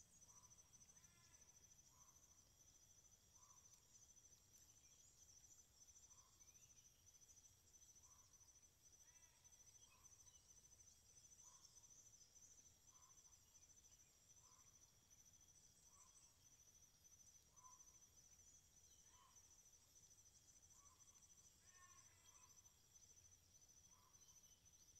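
Near silence: faint outdoor ambience with a steady high-pitched insect trill, and faint short calls repeating about once a second.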